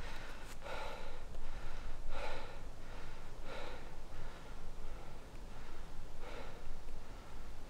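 A man breathing hard through his open mouth: four heavy breaths about a second and a half apart, with a longer pause before the last one.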